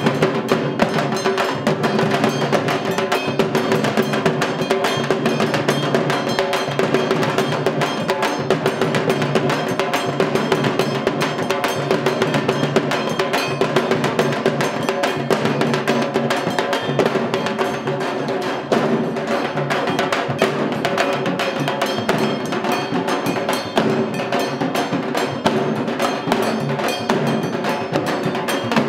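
Aarti accompaniment: fast, unbroken drumming and struck percussion, with a steady held tone underneath.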